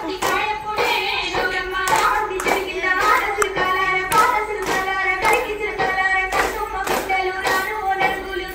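A circle of dancing women clapping their hands in a steady rhythm, about two claps a second, in time with women singing a festival song.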